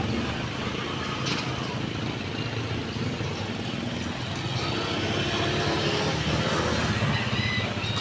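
Street traffic: motor vehicles running and passing, a steady low rumble.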